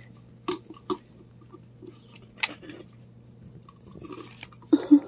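Baby raccoons chewing and biting on a string: scattered small crunches and clicks, with one sharp click about two and a half seconds in.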